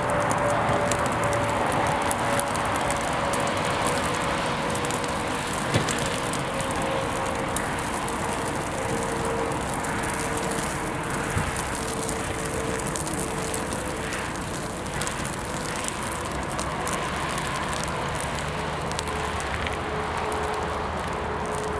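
Flames burning across a paint-splattered canvas, a steady rushing with fine crackling, under a faint steady hum that slowly drops in pitch.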